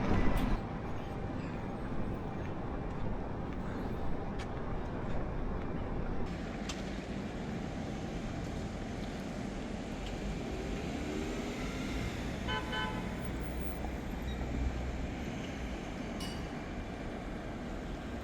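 Steady road-traffic noise with a low rumble, and a short, stuttering horn-like beep about twelve and a half seconds in.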